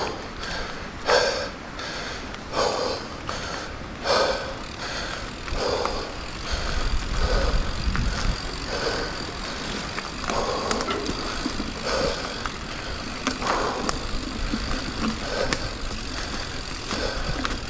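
Mountain biker breathing hard while pedalling uphill, a loud exhale about every second and a half, over steady bicycle tyre and drivetrain noise on dirt. Wind rumbles on the microphone for a few seconds in the middle.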